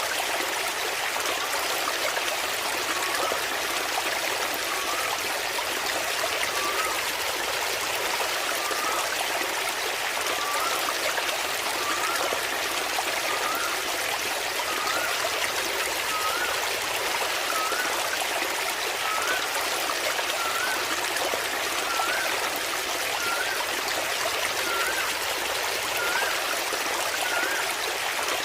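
Waterfall water splashing and running steadily. A faint short rising chirp repeats about once a second from a few seconds in.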